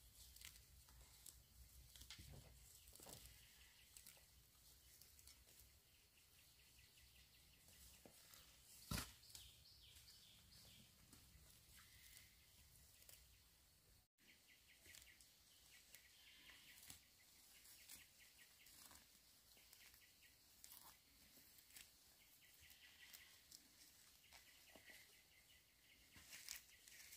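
Near silence: faint outdoor ambience with scattered small clicks and rustles, and one sharper click about nine seconds in.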